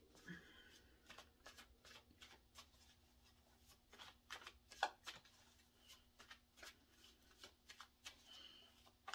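Faint shuffling and handling of a deck of tarot cards: a scattered run of soft, quick card clicks and flicks.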